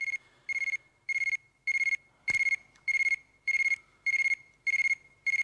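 Telephone ringing: short trilling rings repeating about one and a half times a second. A sharp click about two seconds in.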